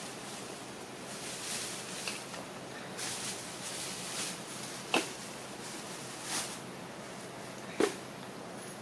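Baby macaques handling and eating fruit: soft rustling, with two sharp clicks about five seconds in and near the end, over a steady hiss.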